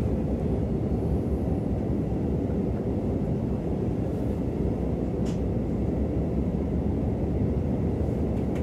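Steady running rumble of an Intercity train, heard from inside the passenger coach as it rolls along the rails. One short light click about five seconds in.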